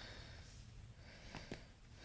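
Near room tone, with faint soft rustling and two light taps close together about a second and a half in, from a kitten pawing and chewing at a sneaker.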